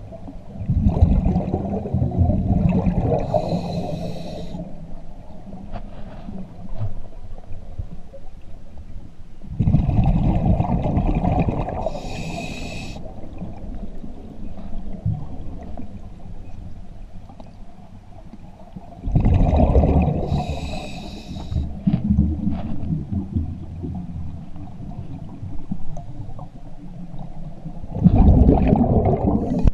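Scuba diver breathing through a regulator underwater: each breath brings a hiss from the regulator and a rush of exhaled bubbles, four breaths about nine to ten seconds apart.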